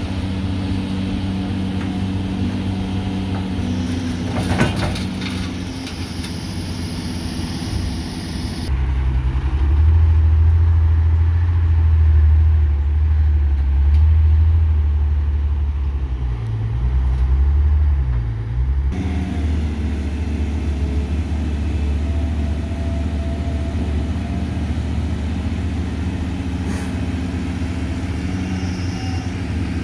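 Diesel engines of a Caterpillar hydraulic excavator and a dump truck running steadily while the excavator loads soil into the truck. From about nine seconds in the engine note turns deeper and louder, dipping and rising in pitch a few times, then goes back to the steady running near nineteen seconds. A brief clatter comes twice.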